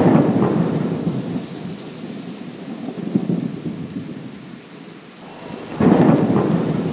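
Thunderstorm sound effect: a loud clap of thunder rumbling away over rain, then a second loud thunderclap near the end.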